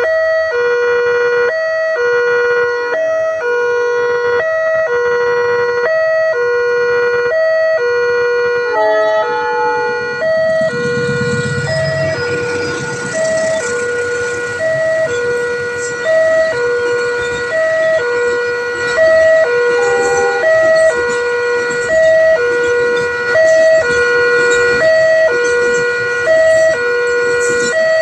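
Railway level-crossing warning alarm sounding a repeating electronic two-tone signal, alternating a lower and a higher note a little over once a second. About ten seconds in, a rumbling, rushing noise joins it and keeps going under the alarm.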